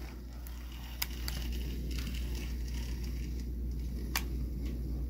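Brass OO gauge GWR 8750 pannier tank model locomotive running on a steel-alloy test track: a low, steady running rumble with a few sharp clicks. It runs with a stutter, which the owner is positive comes from the old, dirty track.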